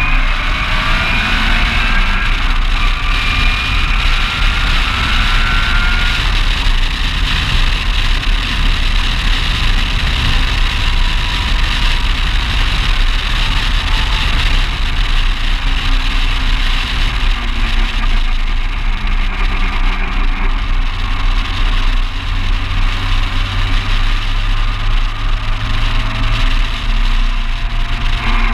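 Ginetta G20 race car's engine at speed, heard from the open cockpit over a steady hiss of wind and road noise. The revs climb for the first few seconds, hold fairly steady, then rise slowly again near the end.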